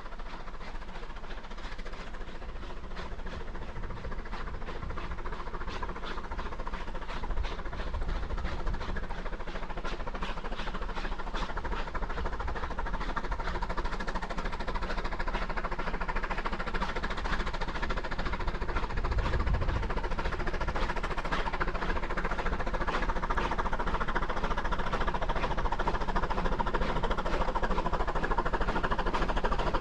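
The R12 steam rotary snowplough, built in 1913 and formerly of the RhB, working through deep snow as it comes closer. Its steam exhaust beats rapidly over a steady mechanical din, and the sound grows steadily louder.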